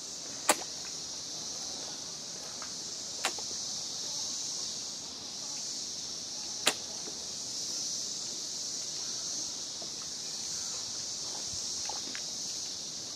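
Fish gulping at the water surface, making three sharp smacking pops about half a second, three seconds and six and a half seconds in, over a steady high-pitched insect drone.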